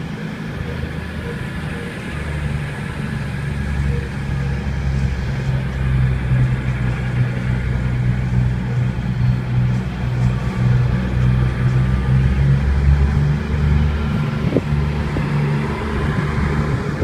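Two coupled CrossCountry Voyager diesel multiple units pulling out, their underfloor diesel engines working under power with a deep, steady drone that grows louder a few seconds in.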